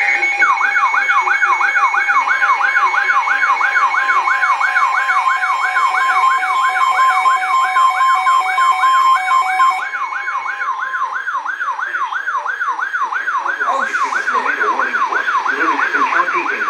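Weather radio alert for a tornado warning: a warbling siren tone rising and falling about three times a second, over the steady NOAA Weather Radio attention tone. The steady tone cuts off about ten seconds in while the warble keeps going.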